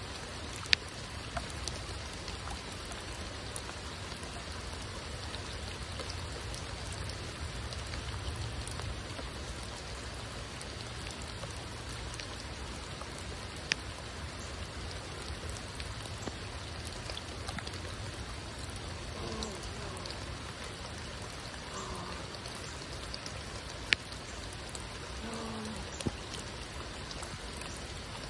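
Steady rain falling, with a few sharp ticks of single drops landing close by, the loudest about a second in and two more later on.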